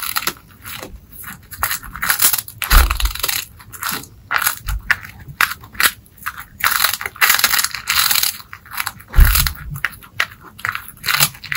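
A cat crunching and chewing food close to the microphone, in irregular bites with short pauses between them.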